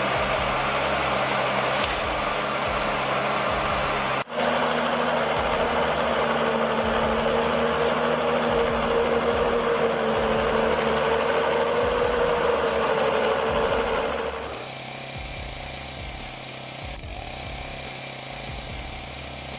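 Heavy machinery diesel engines running steadily, with abrupt changes about four seconds in and near fourteen seconds. Between those changes a steady whine sits over the engine, and the last part is quieter.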